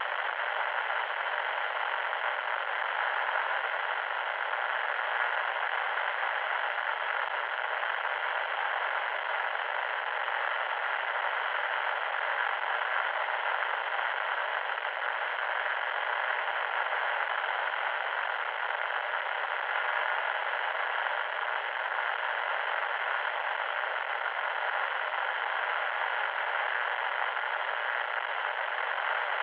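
Loud static noise: a steady, unbroken hiss with no bass and little treble.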